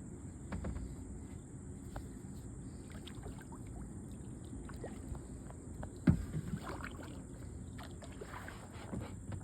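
Paddling a small boat on a river: the paddle dipping, water splashing and dripping, and light knocks, with one louder knock about six seconds in.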